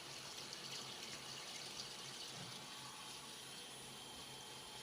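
Coolant running steadily over the work as a lathe drills a 29 mm hole under hydraulic feed, with a steady low machine hum beneath it.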